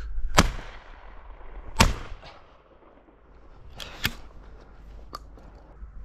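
Two shotgun shots from an over/under shotgun, about a second and a half apart, each echoing across open country, followed by a few lighter clicks about four and five seconds in.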